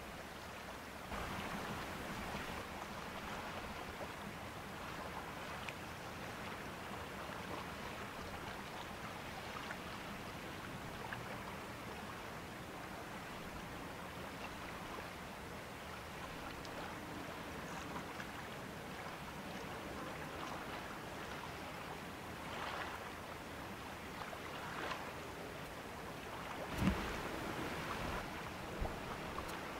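Steady outdoor river ambience: a wash of wind and water noise with a faint low hum under it. Near the end there are a couple of low thumps of wind or handling on the microphone.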